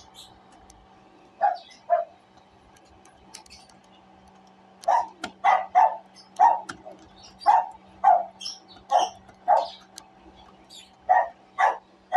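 A dog barking: two barks, then a quick run of about ten, then two more near the end.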